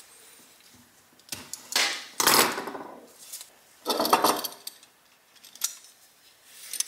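Hand tools being set down on a wooden workbench and a thick insulated cable handled: a few knocks and clatters, the loudest about two and four seconds in.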